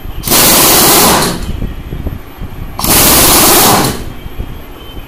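Pneumatic impact gun running in two loud bursts of about a second each, spinning a 24-volt alternator's pulley to test whether it charges.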